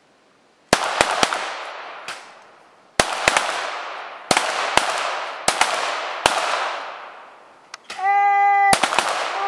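Several .22-calibre pistols firing a timed series of rapid shots in irregular clusters, each crack followed by a long echo. A brief steady tone sounds about eight seconds in.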